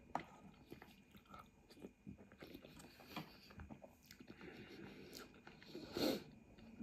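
Close-up mouth sounds of a person eating egg noodles: a short slurp as the noodles are sucked in just after the start, then soft chewing with many small wet clicks, and a louder mouth sound about six seconds in.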